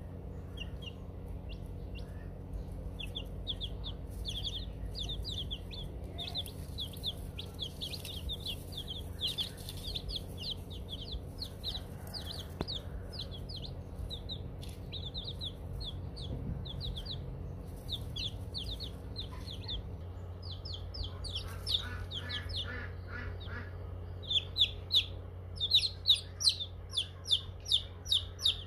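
A brood of newly hatched chicks peeping in rapid, high cheeps that grow louder and more frequent in the last few seconds, over a steady low hum.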